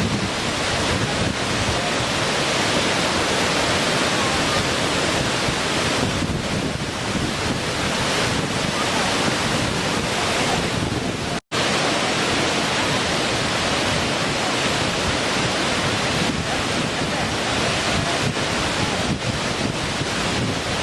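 Small waterfall with water splashing and rushing steadily, broken by a split-second dropout about halfway through.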